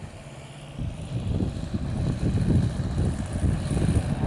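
Radio-controlled Cessna 337 model plane's motors with a faint high whine, throttled back on its landing approach and touchdown, under a low wind rumble on the microphone that grows louder about a second in.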